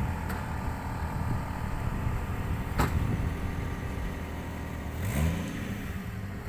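Off-road 4x4's engine running steadily, with a short rise in revs about five seconds in. A single sharp knock is heard just before the midpoint.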